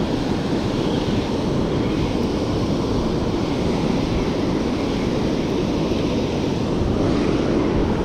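Steady rush of river water pouring over a low-head dam and churning in the rapids below it.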